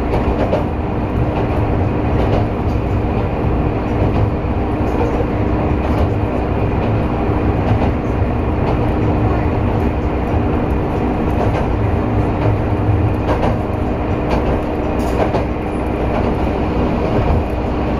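Diesel railbus running steadily along the track, heard from inside the car: a constant engine and rolling drone with a steady hum, and now and then a faint clack from the wheels.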